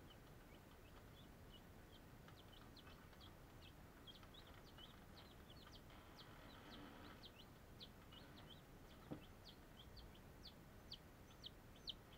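Newly hatched chicks peeping over and over in short, high, falling peeps, faint and muffled because the camera was recording inside its waterproof case. A single knock sounds about nine seconds in.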